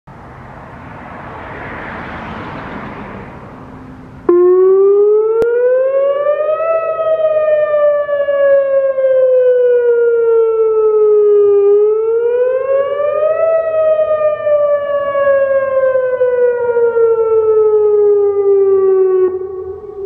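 Whelen WPS-2903 electronic siren sounding a wail during a monthly test of the mass-notification system. It cuts in abruptly about four seconds in, then twice rises quickly and falls slowly in pitch before stopping near the end. Before it starts, only a faint background noise swells and fades.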